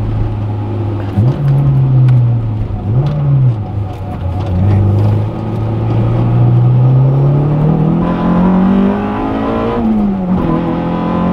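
Honda Integra Type R's B18C four-cylinder VTEC engine heard from inside the cabin while driving: two short rises in revs in the first few seconds, then a long steady climb in pitch lasting about four seconds, falling sharply near the end.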